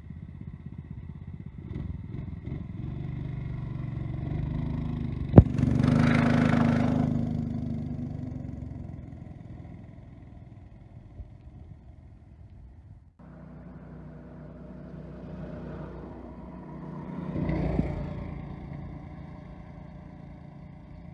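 Predator 212 single-cylinder four-stroke engine of a gas-powered Power Wheels kart running. It grows louder to a peak about six seconds in, just after a sharp click, then fades. After an abrupt break it swells again briefly later on.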